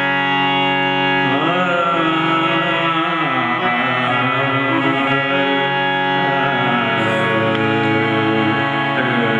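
Harmonium and tanpura drone playing in raag Malkauns, with a male voice starting to sing about a second in, sliding between notes.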